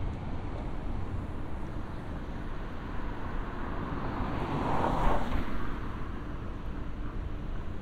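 A car passing close by on the street: tyre and engine noise swells to a peak about five seconds in, then fades, over a steady low city rumble.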